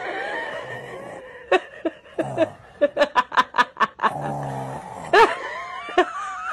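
A toddler imitating her father's snoring: a string of short throaty snore noises, with a quick run of them in the middle.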